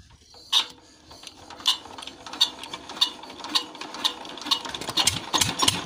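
Chief 'Peter' single-cylinder diesel engine being hand-cranked to start: sharp mechanical clicks come faster and faster as the flywheel spins up. Near the end it begins to fire.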